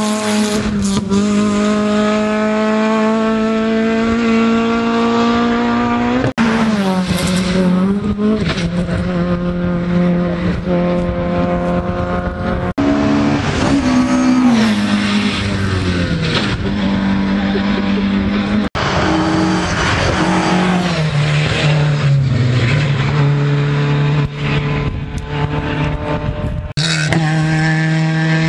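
Rally cars at full throttle on a closed stage, one after another, their engine notes holding high, then falling and rising again through gear changes. The sound breaks off abruptly three times.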